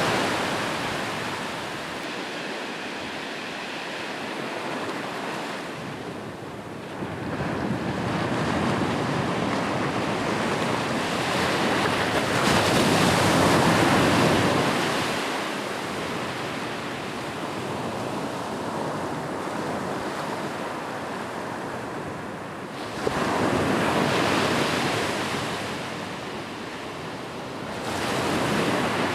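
Ocean surf breaking on a beach and washing up the shore, rising and falling in slow swells every several seconds, loudest a little before the middle and again near the end.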